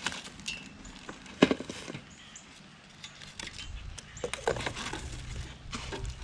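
Plastic bag wrapping and foam packing rustling and crinkling as a boxed welder is lifted out and the foam end caps are pulled off, with scattered small clicks and a sharp knock about a second and a half in.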